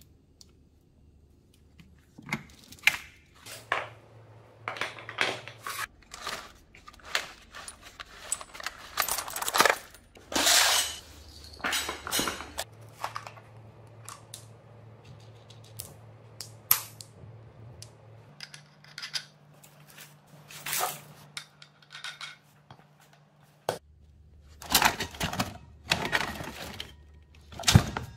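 Loose metal parts clinking and clattering as they are handled: nuts, bolts and fittings rattled in a plastic tub and parts shifted about in a cardboard box. The knocks come irregularly, in clusters.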